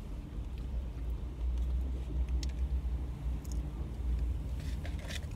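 Steady low rumble in a parked car's cabin, with a few faint clicks.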